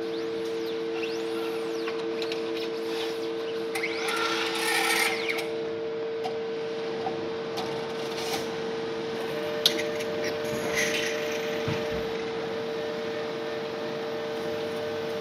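Automated clinical laboratory analyzer running: a steady electrical hum with two constant tones, a short burst of motor whirring about four seconds in, and a few sharp mechanical clicks around ten seconds in.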